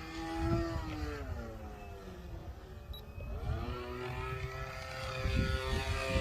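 RC model airplane's engine running in flight, its pitch sliding down as it passes and then rising again as it comes around, during an attempted snap roll.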